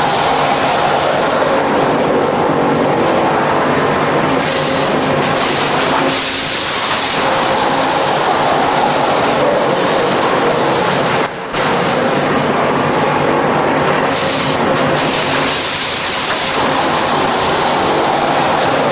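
Multi-deck conveyor machinery of a lathe line running: a loud, steady mechanical clatter and hiss over a constant hum, dipping out briefly about eleven seconds in.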